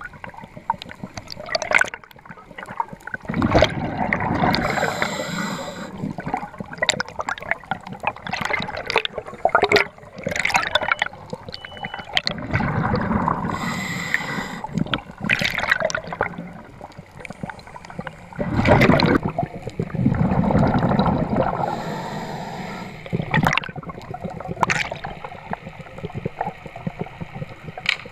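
Underwater audio from a camera in its housing as a freediver swims: rushing, gurgling water that swells and fades in several waves, with many scattered clicks and knocks.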